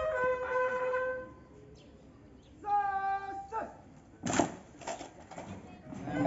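A voice calling out twice in long, held, flat-pitched shouts, then a few sharp knocks; drumming starts right at the end.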